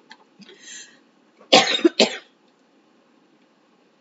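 A woman coughing twice in quick succession, about a second and a half in, from a tickle in her throat; a short, faint hiss comes just before.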